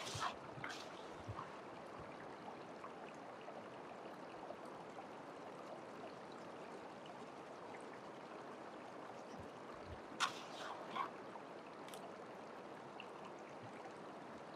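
Stream water running steadily over rocks and through a gold-prospecting sluice box, with a few brief knocks, the loudest about ten seconds in.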